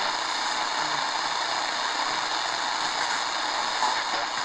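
Steady shortwave static hissing from a Tecsun R9700DX analog portable radio's speaker while it is tuned across the bottom of its first shortwave band, around 3.7 MHz, on its whip antenna.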